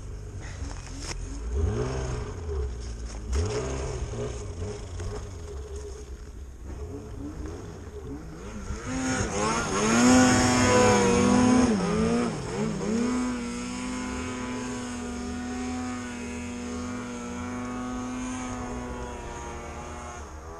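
Snowmobile engine revving in deep powder: short rises and falls in revs early on, a loud climb about nine seconds in, then a steady high-revving run for the rest.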